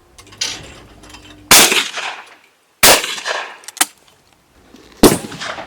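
Shotgun blasts at clay targets: three loud, sharp reports with an echoing tail, about one and a half and two seconds apart. A softer thump comes just before them.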